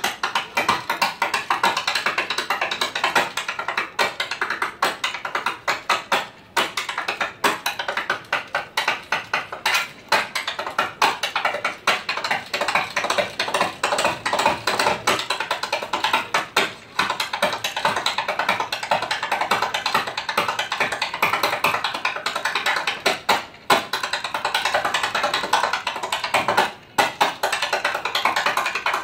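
Solo tap dancing: tap shoes striking the floor in a fast, dense, shifting rhythm, broken by a few brief pauses.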